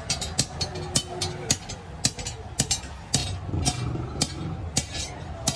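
Repeated sharp knocks, about three or four a second at uneven spacing, over a steady low rumble.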